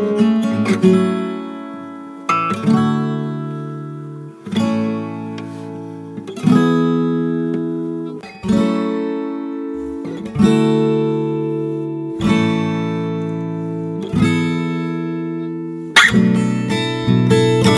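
Background music: an acoustic guitar strumming chords about every two seconds, each left to ring and fade, turning to quicker strumming near the end.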